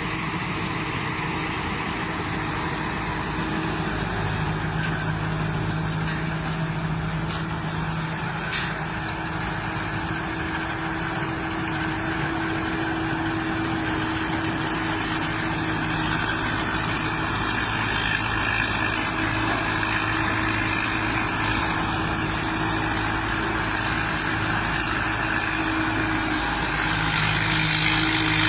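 Combine harvester running steadily: an engine hum with a thin high whine that comes up about halfway through, growing slightly louder near the end.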